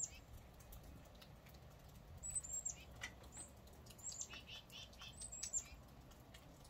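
Small birds chirping: short, high calls that slide downward, coming in clusters about two, four and five seconds in, some followed by a few lower repeated notes. Under them is a faint steady low rumble.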